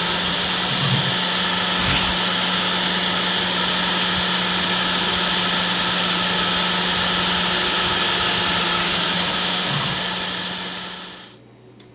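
CNC router spindle running steadily as its engraving bit mills circuit-board traces into copper-clad textolite, a loud even machine noise with a steady hum under it. It fades out near the end.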